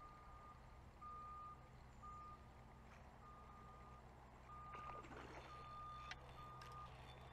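Faint electronic beeping: short beeps at one steady, fairly high pitch, repeating about once a second.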